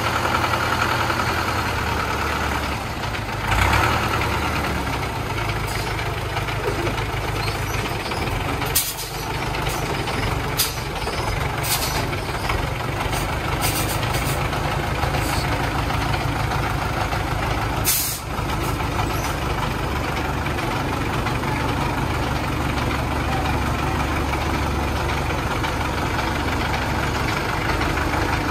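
Diesel engine of a homemade three-wheeled công nông dump truck running steadily while the tipper bed is raised on its hydraulic rams. Several short sharp hisses cut in, about 9, 11, 12 and 18 seconds in, typical of the truck's air brakes releasing air.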